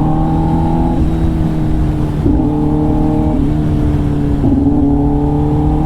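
Kawasaki ZX-10R inline-four engine breathing through an SC-Project titanium exhaust while riding, a steady note whose pitch steps up and down several times.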